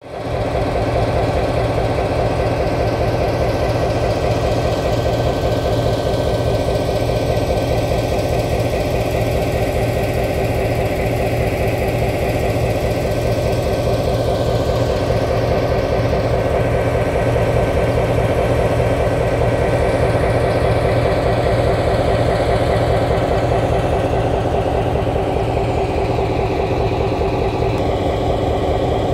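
EMD GP9 diesel-electric locomotive's two-stroke diesel engine idling with a steady, even beat.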